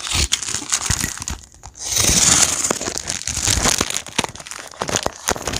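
Parcel packaging being torn open and crumpled by hand, a dense crackling and rustling that is loudest for about a second around two seconds in.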